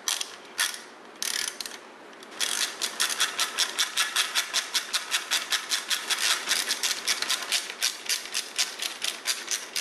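Hand ratchet clicking as it runs exhaust manifold studs in on a Chevy 350 small block. A few separate clicks at first, then about two and a half seconds in a steady run of quick, even clicks, about five or six a second.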